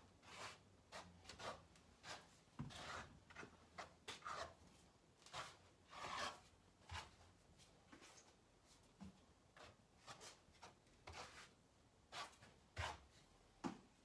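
Trowel scraping and spreading thinset mortar over a pre-sloped shower pan around the drain hole, bedding it for a bonding flange drain. Faint, irregular scrapes and strokes.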